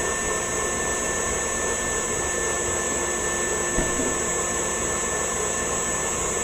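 Steady electric motor hum and whine of a kitchen appliance, unchanging throughout, with a single light knock just before four seconds in.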